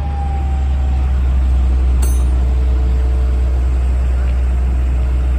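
Engine running steadily at idle with a low rumble, and a single sharp click about two seconds in.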